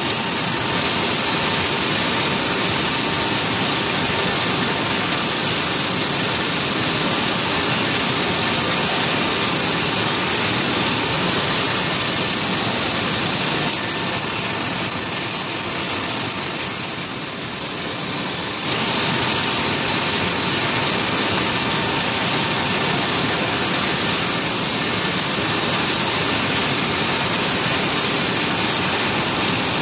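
Steady running noise of a glass-parts production line and its conveyor: a continuous strong hiss over lower machine noise. The hiss fades for a few seconds in the middle and comes back suddenly.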